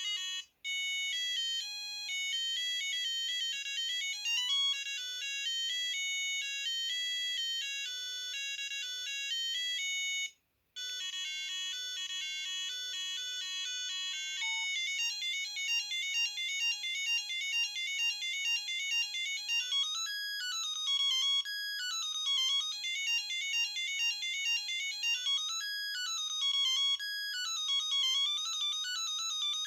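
Samsung SGH-A300 mobile phone playing its ringtones one after another: short electronic melodies, each repeating. There are brief silent breaks about half a second and ten and a half seconds in between tunes, and a new tune starts about fourteen seconds in.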